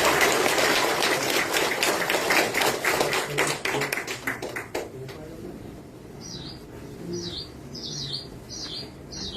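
Audience clapping that thins out and stops about five seconds in. Then a small bird chirps repeatedly, short high notes about twice a second.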